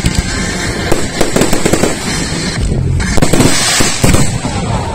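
Fireworks display: rapid, overlapping shell bursts and bangs, with a dense crackling hiss from glittering stars about three seconds in.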